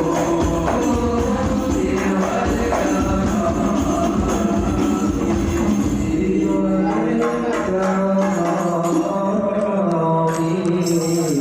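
Shalawat devotional music: voices singing a melody together in Arabic-style praise chant over hand-struck frame drums with jingles.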